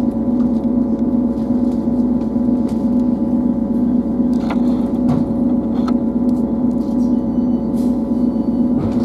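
Class 158 diesel multiple unit's underfloor diesel engine running steadily, heard inside the carriage: a constant low hum with a slight pulse, with a few faint clicks about halfway through.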